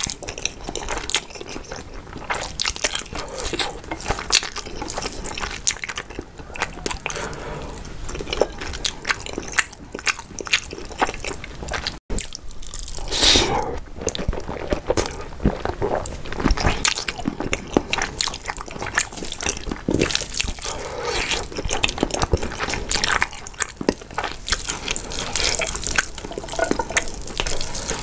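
Close-miked eating of saucy stir-fried spicy instant noodles: wet chewing, lip smacks and slurps in a steady stream of short, moist mouth sounds.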